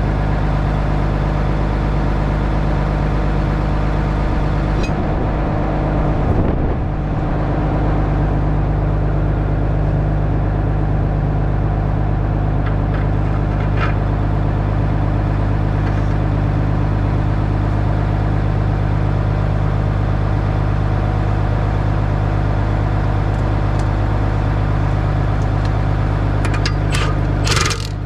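Tractor diesel engine running steadily at constant speed, with a few sharp metallic clinks near the end.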